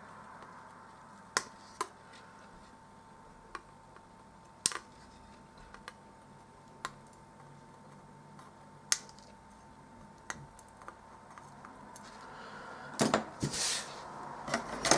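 Small hand tools and components being handled on an electronics workbench: sparse sharp clicks and taps, then a short burst of clatter and rustling near the end. A faint steady high tone sits underneath.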